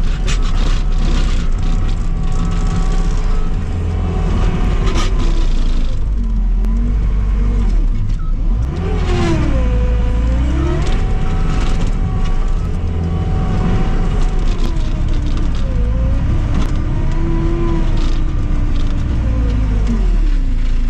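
Manitou tracked skid steer's diesel engine working hard under load. Its pitch sags and recovers several times as the machine pushes into frozen ice banks while short of traction. Sharp knocks and clanks come mostly in the first few seconds.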